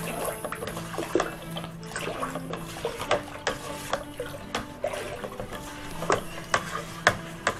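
Honey and water being stirred together with a slotted spatula: liquid swishing, with irregular light knocks of the spatula against the container, two or three a second.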